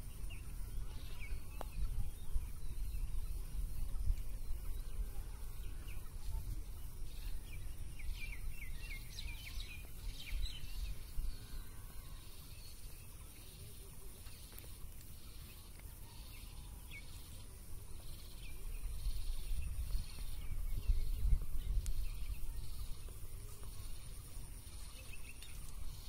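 Outdoor ambience: wind rumbling low on the microphone, with small birds chirping, busiest about a third of the way in.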